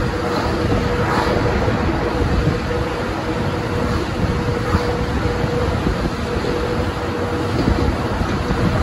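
Steady running noise of a locomotive-hauled passenger train, 12-series coaches behind an ED75 electric locomotive, with a constant hum over the rumble.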